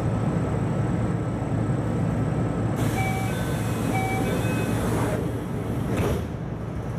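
A train's sliding passenger doors in operation over the train's steady low hum: a short two-note door chime sounds twice, then the doors slide and bump to a stop with a thud about six seconds in.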